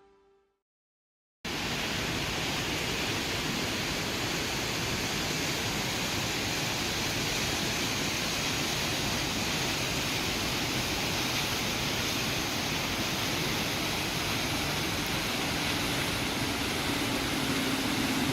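Waterfall rushing steadily, as an even wash of noise with no rhythm, cutting in abruptly about a second and a half in.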